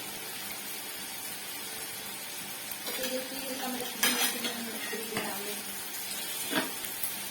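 Meat sizzling on a hot grill, a steady hiss, with utensils clinking against the pan or dishes, sharpest about four seconds in and again near six and a half seconds.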